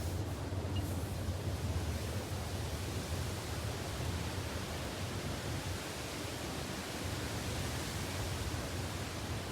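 Steady, even hiss with a low hum underneath, with no distinct events.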